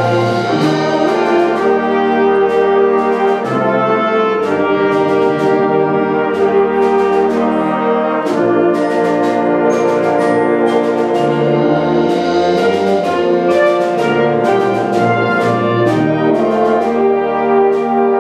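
Wind band playing a piece: brass, flutes and clarinets in held chords over a bass line that moves every couple of seconds, with many short percussion strikes.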